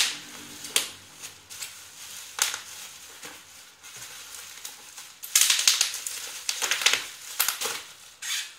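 Plastic bubble wrap crinkling and crackling as it is pulled off a small boxed item, with scattered sharp crackles and a dense run of rustling about five to seven seconds in.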